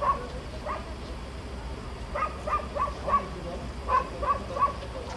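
A dog barking repeatedly: short, sharp barks in runs of three or four, about three a second.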